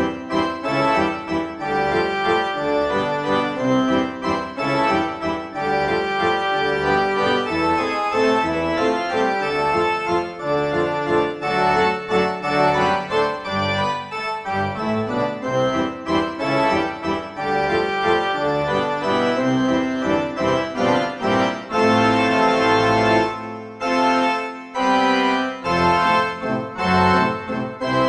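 Instrumental background music with a keyboard melody.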